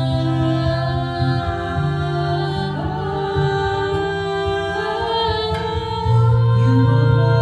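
A folk song performed live: singing in long held notes, with several pitches sounding together over a sustained low note.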